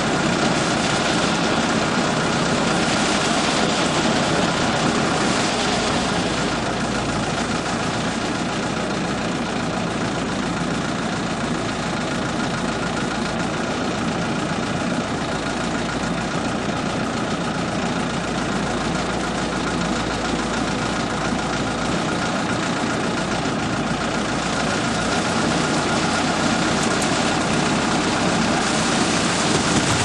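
Diesel engine of a self-loading concrete mixer running steadily at low revs.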